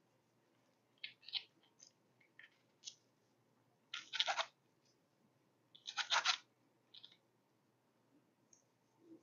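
Chef's knife slicing through a seared flank steak and scraping on a plastic cutting board: a series of short scratchy strokes, the two longest and loudest about four and six seconds in.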